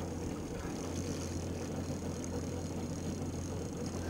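Outboard motor of a Yamaha 190 FSH fishing boat idling with a steady low hum.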